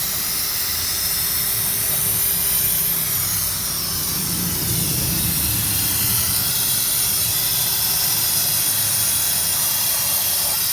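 2013 Kia Rio engine running with a steady high hiss and a low rumble, as carbon-cleaning fluid is sucked into the engine to clean the combustion chambers; the rumble swells briefly about halfway through.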